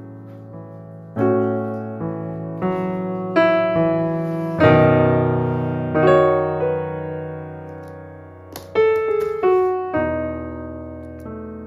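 Background piano music: slow chords and single notes, each struck and left to fade.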